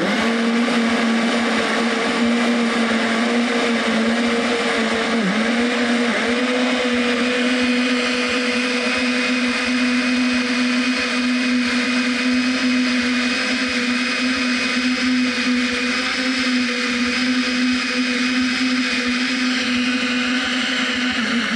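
Countertop blender running continuously on a liquid mix of cashew nuts, water, onion and coconut milk, blending it smooth: a steady motor whine, with a brief dip and wobble in pitch about five seconds in.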